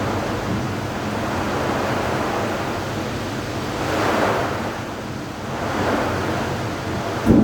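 Steady rushing noise of wind and rain in a thunderstorm, swelling twice in the middle, with a sharp crack near the end.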